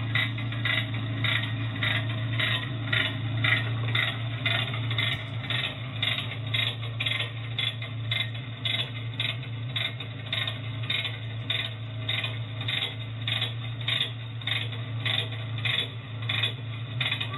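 Rhythmic metallic ratcheting clicks, about two a second, as a hand ratchet or crank works the front rail-guide wheel frame of a Suzuki Samurai rail cart. A steady low hum runs underneath.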